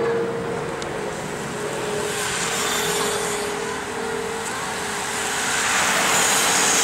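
A pack of racing bicycles riding past close by: a hiss of tyres on the road that builds and is loudest near the end, over a steady engine hum from an accompanying race vehicle.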